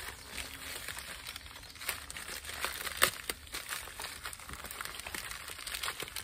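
Padded plastic packing bags crinkling and rustling as they are handled and pulled open, with scattered crackles and one sharper snap about three seconds in.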